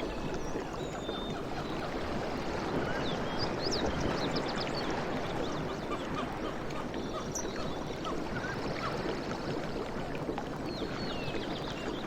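Sea waves washing on a shore: a steady rush of water, with many short high ticks and chirps scattered over it.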